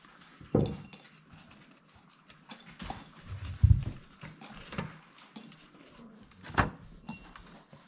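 Gelatin capsules being picked out of a plastic capsule-filler tray and dropped into a glass mason jar: light, scattered clicks and taps, with two louder knocks, one about a third of the way in and one near the end.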